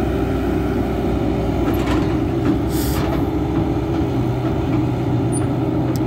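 Kobelco SK120-3 excavator's diesel engine running steadily under hydraulic load as its long-reach boom swings a full bucket of mud. A brief hiss comes about three seconds in.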